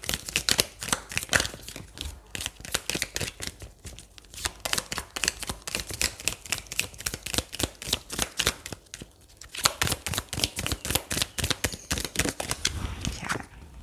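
Tarot cards shuffled by hand: a rapid run of crisp papery flicks and slaps from the card stock. There is a brief pause about nine seconds in before the shuffling resumes.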